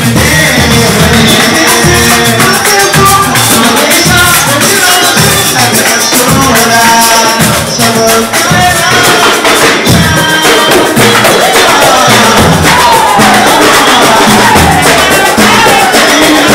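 Live pagode band playing: singing over a steady samba beat, with tambourine and shakers.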